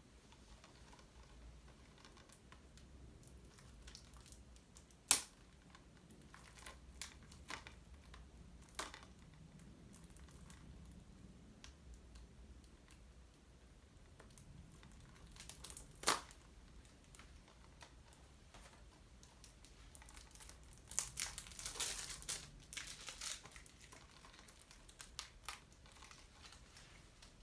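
Plastic shrink wrap being torn and crinkled off a Blu-ray case, with two sharp clicks about five and sixteen seconds in and a burst of crinkling in the last third.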